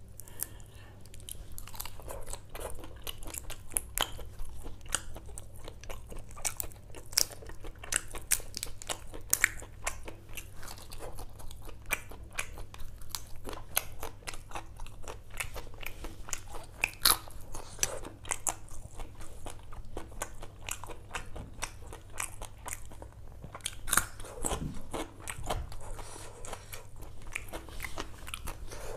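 Close-miked eating: a person chewing and biting curried prawns, a dense run of small sharp clicks with a steady low hum underneath.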